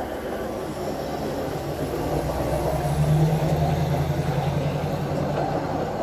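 Hi-rail inspection truck, a pickup running on rail guide wheels, passing close by on the track and moving off. Its engine and wheels make a steady low hum that builds and is loudest about halfway through.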